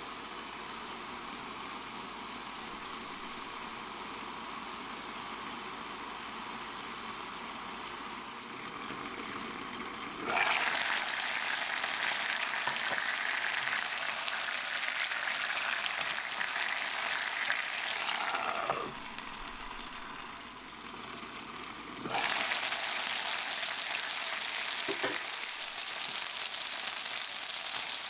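Gyoza steam-frying in water and oil in a nonstick pan: a steady sizzle muffled under a glass lid, which turns suddenly louder and brighter about ten seconds in once the pan is uncovered and the water bubbles away. The sizzle dips for a few seconds and comes back loud a little past twenty seconds.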